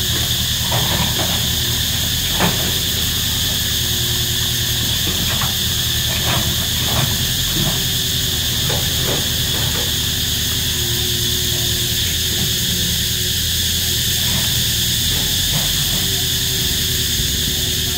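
Loud cicada chorus, a steady high buzz, over the diesel engine of a Komatsu crawler excavator running as it digs, with scattered knocks and scrapes of the bucket and rubble, the sharpest about two and a half seconds in.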